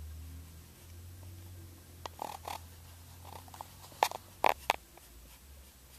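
Sharpie permanent marker squeaking in short strokes across the label side of a CD-R as lettering is written on it. A few strokes come about two seconds in, and a louder quick group follows around four seconds in. A low car hum runs underneath.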